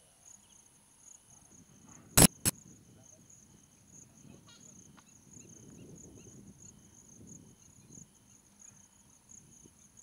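Insects chirring in a steady high pitch with a faint regular pulse, interrupted by two sharp clicks about two seconds in.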